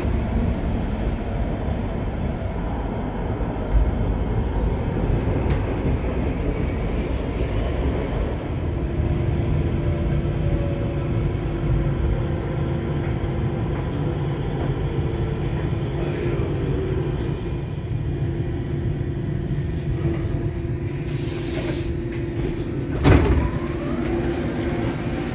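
Interior of a low-floor light-rail car running, a steady rumble with a steady hum that comes in about a third of the way through. Near the end there is a single loud clunk as the door opens at the stop.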